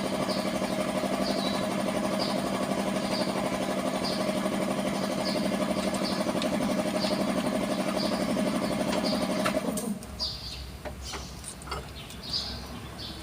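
An engine running steadily at idle, cutting off suddenly about ten seconds in; after it stops, a few light metallic clicks are heard.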